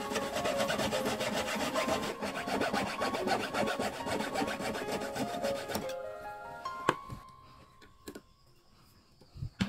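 Jeweller's piercing saw cutting through a silver ring blank on a wooden bench pin: rapid back-and-forth rasping strokes that stop about two-thirds of the way in. A light click follows about a second later.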